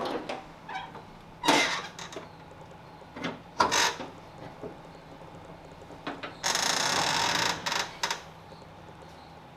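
Range Rover Classic bonnet being opened by hand: metal clicks and knocks as the latch is released and the bonnet is lifted and propped. About six and a half seconds in there is a scrape about a second long, followed by a couple more knocks.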